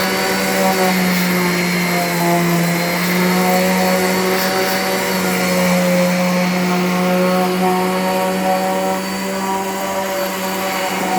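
Makita angle grinder running steadily while sanding old paint off wooden exterior boards: a continuous motor whine over a grinding hiss, its pitch wavering slightly.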